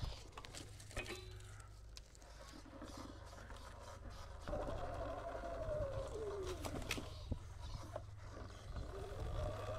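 Sur-Ron Light Bee X electric dirt bike's motor whining as it rides a dirt trail: the whine comes in about halfway through and falls in pitch as the bike slows, then rises again near the end. Scattered sharp clicks and knocks run under it.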